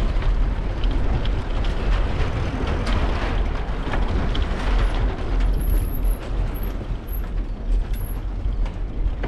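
Wind buffeting a bicycle-mounted GoPro's microphone while riding, mixed with the rumble and clicking of the bike's tyres running over the planks of a wooden boardwalk.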